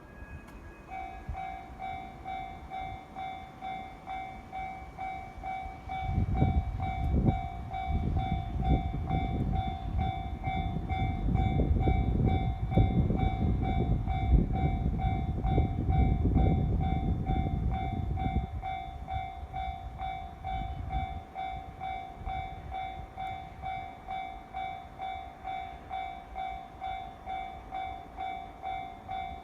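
A level-crossing warning bell starts about a second in and rings with an even, steady pulse. From about six seconds a four-car JR 719 series electric train passes: a loud rumble of wheels on the rails with sharp clicks, which dies away by about eighteen seconds while the bell keeps ringing.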